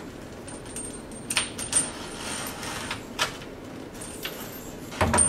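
Scattered metallic clicks and light knocks, with a louder cluster near the end: a kitchen faucet and its braided steel hose clinking against a stainless steel sink top as the faucet is fed into its mounting hole.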